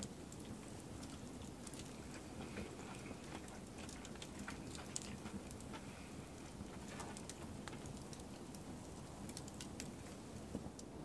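Wood fire crackling faintly in an open fire pit: scattered, irregular snaps and pops over a low, steady rush.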